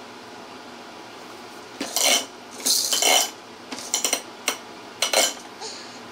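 Hard objects clattering and clinking in a run of short, loud bursts, starting about two seconds in and stopping about a second before the end.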